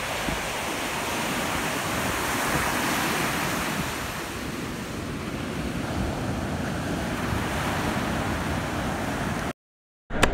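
Storm-churned ocean surf breaking and washing up a sand beach, a steady rush of water that cuts off suddenly near the end.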